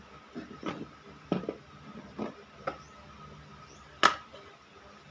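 Metal hand tools and a plastic part being picked up and set down on a plywood board: a run of light knocks and clatters, the sharpest about four seconds in.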